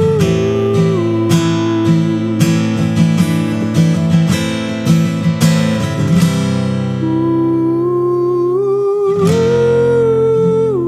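Background music from a slow Turkish song: acoustic guitar strumming chords, giving way about six seconds in to held notes carrying a slow melody line.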